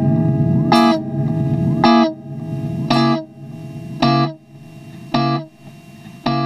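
Electric guitar played through a Keeley Halo Core delay pedal: a wash of delay repeats gliding up in pitch fades out, then a chord sounds six times at about one-second intervals, each ringing on into its echoes.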